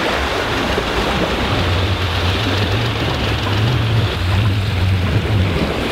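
Steady rush of water and wind aboard a sailboat under spinnaker, with a low hum that comes in about a second and a half in and fades near the end.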